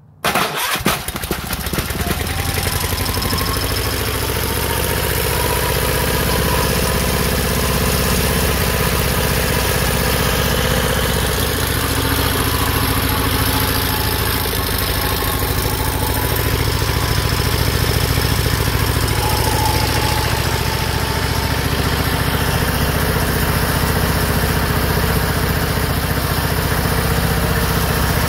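Rebuilt Onan B43G opposed two-cylinder engine cranked by its electric starter and catching almost at once, then running steadily at idle.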